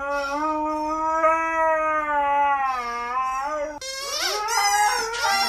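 Siberian husky howling: one long, steady howl that dips slightly in pitch and ends a little past three and a half seconds in. After a short break, howling starts again with a swooping, wavering pitch.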